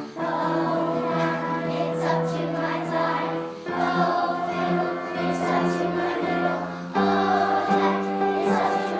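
Music with sustained choral-sounding chords, moving to a new chord about every three and a half seconds, no clear words.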